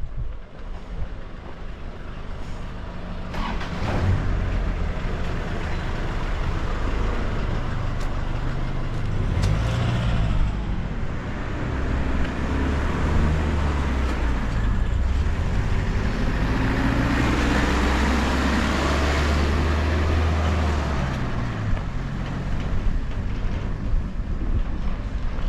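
A motor vehicle driving past with a low engine hum. The engine and tyre noise build to a peak about three quarters of the way in, then fade.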